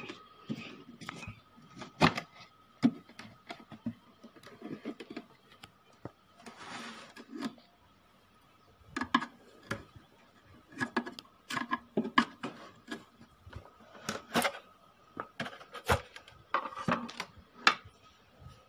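Irregular knocks, clicks and a brief scrape of hands handling an amplifier cabinet, a metal tool and its circuit board, with no steady rhythm.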